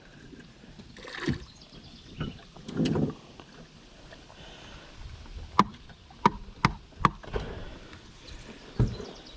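Handling noises from working on a boat outboard's fuel filter: a soft rustle or two, then a few sharp clicks and knocks, most of them between about five and seven seconds in.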